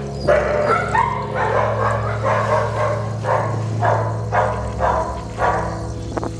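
Dog barking repeatedly, a run of short barks about two a second, over a steady low hum.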